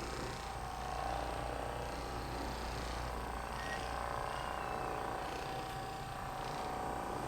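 A small electric motor humming steadily, with no pops or cracks.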